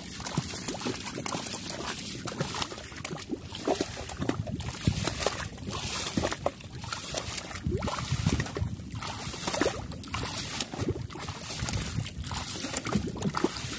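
Water sloshing and splashing around the legs of people wading in shallow water as they push a wooden outrigger canoe, in uneven surges about once a second.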